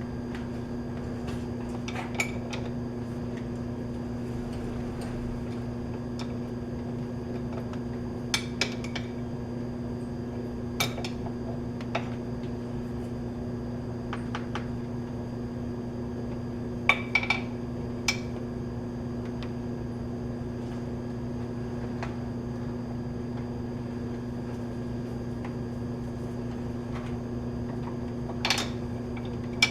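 Scattered metallic clinks and taps of steel tools and fittings being handled while setting up a metal lathe, some in quick pairs, over a steady electrical hum.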